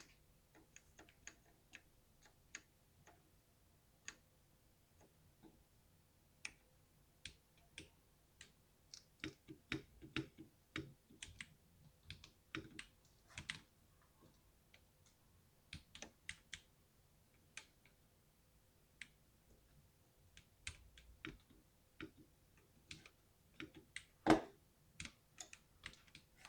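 Mechanical keyboard with Cherry MX Silver linear switches being typed on: irregular keystroke clicks, coming in quick runs at times, with one noticeably louder, deeper keystroke a couple of seconds before the end.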